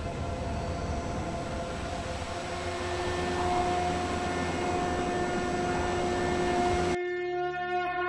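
Dramatic TV-serial background score: a dense rumbling swell with held horn-like tones that strengthen midway. It cuts off suddenly about seven seconds in, leaving a softer sustained drone.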